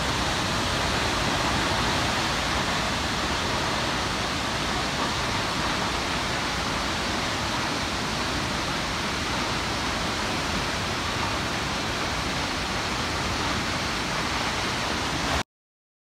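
Nachi Falls, a tall single-drop waterfall, giving a steady, even rushing noise of falling water. It cuts off suddenly near the end.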